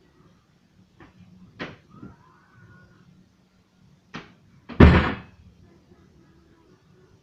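A few knocks in the first two seconds and another around four seconds, then one loud thump about five seconds in.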